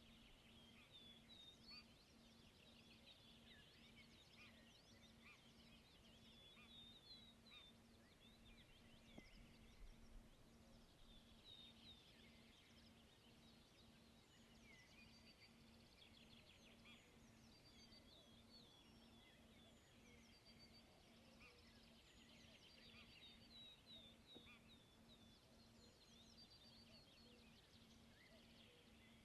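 Faint chorus of small songbirds: many short, high, quickly repeated chirps and trills overlapping throughout, over a low hiss.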